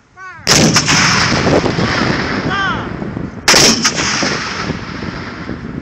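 Civil War–era muzzle-loading field cannons of an artillery battery firing one gun at a time: one blast about half a second in and another about three seconds later, each followed by a long echoing rumble.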